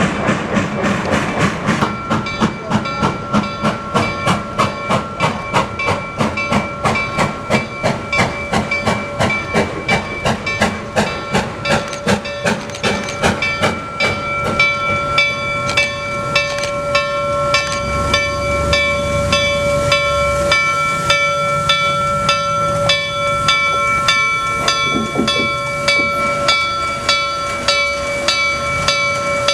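Reading T1 steam locomotive standing with steam hissing and a steady rhythmic beat, about three or four strokes a second, with a few ringing tones held over it.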